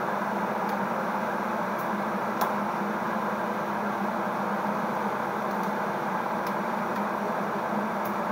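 Pot of mushrooms at a steady boil on a lit gas burner: a continuous, even rushing and bubbling noise, with a few faint clicks, the clearest about two and a half seconds in.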